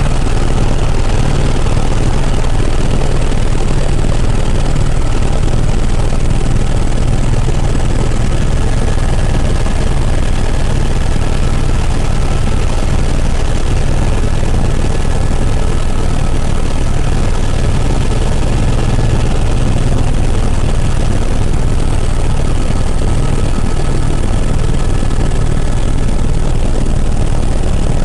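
Helicopter in flight heard from inside the cabin: a loud, steady drone of rotor and engine, heaviest in the low end, with a faint whine held above it.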